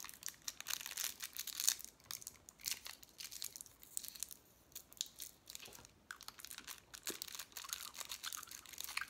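Crinkling and tearing of a small packet wrapper as MRE chewing gum is opened: a run of sharp crackles, dense in the first couple of seconds, then scattered.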